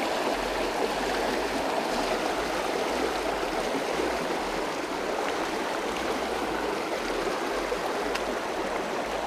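Small creek's water running steadily over rocks, a continuous rushing.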